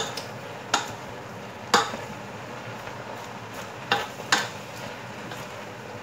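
Wooden spoon stirring leeks and carrots in a stainless steel pot, knocking sharply against the pot five times at uneven intervals, over a steady low hiss.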